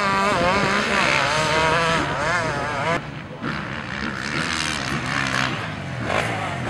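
Motocross bikes racing on a sand track, their engines revving hard with the pitch swinging up and down again and again as the throttle is worked over the bumps and jumps. The sound changes abruptly about three seconds in, to more bikes running a little quieter.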